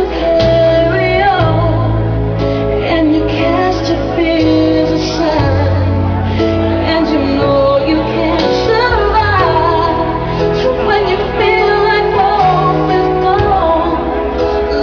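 Pop song with a woman singing over a bass line that changes note every second or two.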